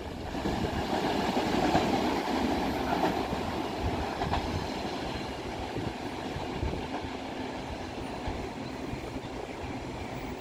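DMU3100 diesel multiple unit passing on the rails, its diesel engine running with wheel-on-rail rumble and a few faint clicks, slowly fading as the train moves away.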